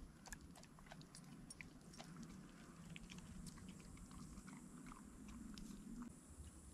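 Near silence: quiet outdoor ambience with faint, scattered small clicks and crackles.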